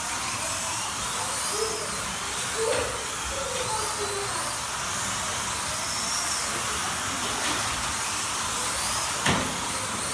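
Slot cars running on the track: their small electric motors whine over a steady hiss, rising and falling in pitch as they speed up and brake through the corners. A sharp click sounds near the end.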